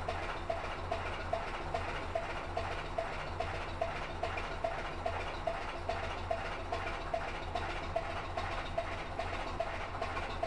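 Narrowboat engine running steadily at low speed inside a concrete culvert: a low hum with a regular sharp tick about two and a half times a second.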